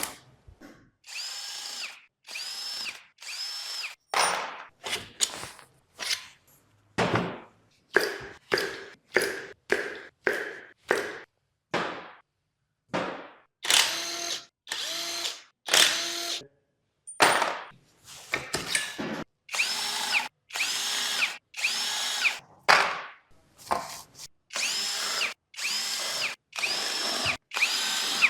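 Cordless power driver run in short bursts, about one a second, each a motor whine that rises and falls, as bolts are spun out while the engine is being taken apart.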